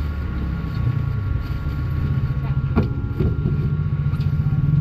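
A motor vehicle engine running close by, a steady low pulsing hum that rises slightly in pitch near the end. Two short knocks come about three seconds in.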